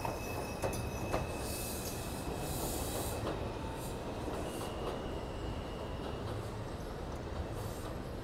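R142 subway train pulling out of an elevated station and moving away: a steady rumble of wheels on rails, with a few sharp clicks over the rail joints in the first second or so and a thin, high, steady squeal from the wheels.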